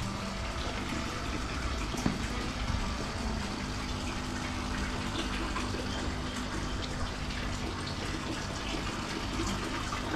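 Water running and splashing steadily into a fish pond, a continuous gushing, with a low steady hum underneath.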